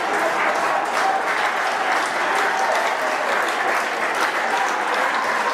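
Crowd applauding steadily, a dense patter of many hands clapping, with some voices shouting mixed in.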